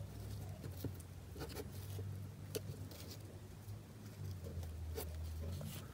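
Faint rustling and a few soft scratchy ticks of ribbon being pulled, folded and tightened around a plastic headband, over a low steady hum.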